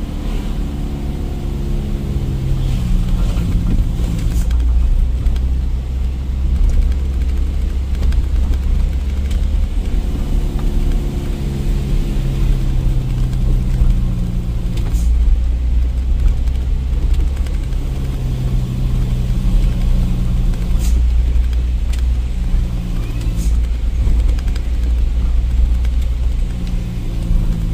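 Truck engine running under way, its pitch rising and falling several times as the revs change with the gears and the load. A few short sharp clicks or rattles come through in the second half.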